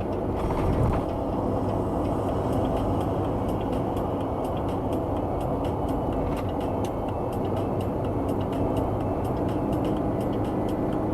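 Road vehicle under way, a steady low rumble of engine and tyre noise, with faint scattered clicks over it.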